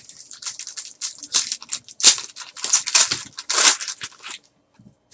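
Foil wrapper of a trading card pack crinkling and tearing as the pack is opened by hand, a run of irregular crackles that is loudest about two seconds in and again near the end.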